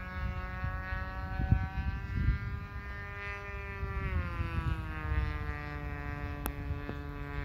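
Distant buzz of a 30cc gas engine on a radio-controlled Dauntless model plane in flight, a steady whine whose pitch drops about four seconds in and then holds lower. Wind buffets the microphone throughout, with a single sharp click near the end.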